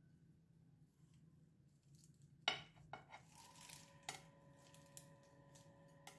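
A metal kitchen knife clinking against a ceramic plate: one sharp clink about two and a half seconds in, then a few lighter clinks and taps.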